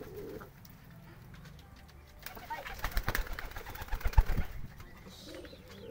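Domestic pigeons cooing low, and about two seconds in a couple of seconds of loud, crackly rustling and knocking close to the microphone from the pigeon perched on the hand.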